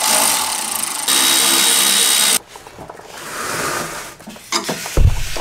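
Cordless power ratchet running in bursts as it spins out the 13 mm bolts of the front sway bar mounts, with a short pause partway through and a low knock near the end.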